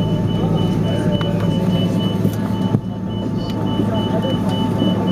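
Steady cabin hum of an Airbus A330-200 on the ground, with a steady whine and an evenly repeating high beep that comes from the crew rest. A single handling knock about three seconds in as the camera is covered.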